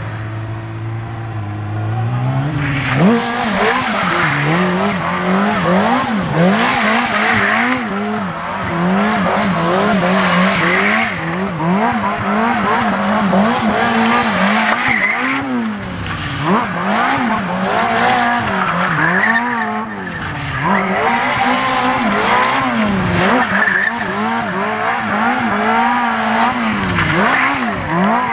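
Sport bike engine revving up and down over and over as the bike spins donuts, with the rear tyre skidding on the pavement. It holds a steady low note for the first couple of seconds, then climbs into the repeated revving.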